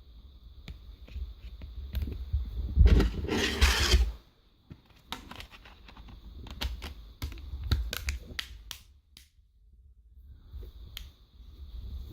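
Hands handling a Blu Life Mark smartphone's plastic parts while fitting its battery: a loud rustling scrape about three seconds in, then a run of small sharp plastic clicks.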